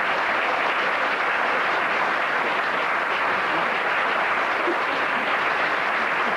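Theatre audience applauding in a steady, even round.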